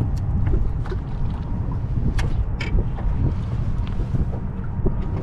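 Steady low rumble of wind buffeting the microphone on a small fishing boat, with scattered light clicks and knocks.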